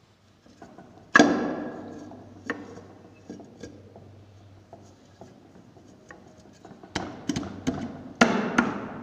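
Right-hand crankcase cover of a Hero Honda Splendor engine being knocked down onto its gasket by hand to seat it. One loud knock with a ringing decay about a second in, a lighter one shortly after, then a quick run of knocks near the end.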